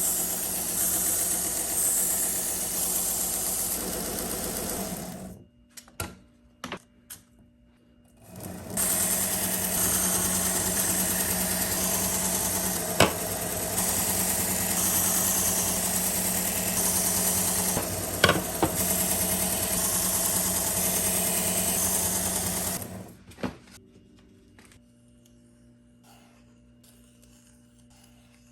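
Powered knife-sharpening machine running as a blade is ground on it. It stops about five seconds in, a few light clicks follow, then it runs again for about fourteen seconds with a couple of sharp ticks before shutting off, leaving a faint hum.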